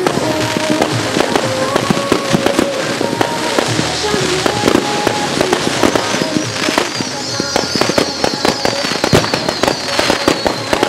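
A fireworks display going off: a dense run of pops, bangs and crackles from aerial shells and ground fountains firing close together, with music playing underneath. Over the last few seconds a high whistle slowly falls in pitch.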